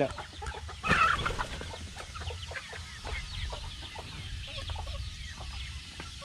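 Backyard chickens clucking, many short calls overlapping, with one louder call about a second in.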